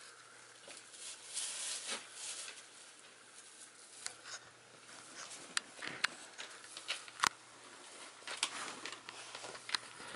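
Six-week-old puppies playing and scuffling on carpet: soft pattering and scratching of paws and claws, with scattered small clicks and knocks.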